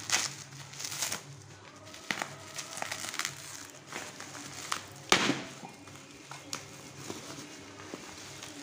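Bubble wrap and plastic wrapping being handled and pulled off by hand, crinkling and crackling in irregular bursts, with one sharper crackle about five seconds in.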